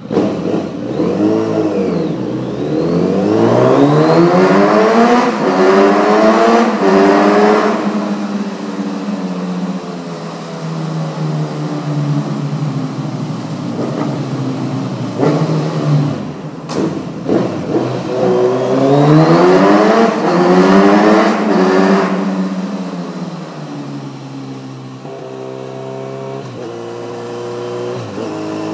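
Kawasaki Z900RS inline-four running through an Akrapovic titanium slip-on with stainless-steel header, ridden hard. The revs climb steeply twice, near the start and about two-thirds of the way in, then ease off to a steadier cruise.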